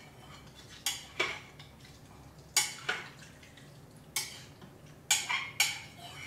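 A spoon stirring a slow cooker full of beef, wine and stock, knocking against the crock in sharp, irregular clinks, several of them in close pairs.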